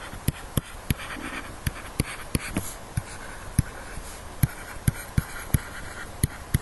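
Pen stylus writing on a tablet computer screen: irregular sharp taps, two or three a second, over a soft scratchy hiss as the letters are drawn.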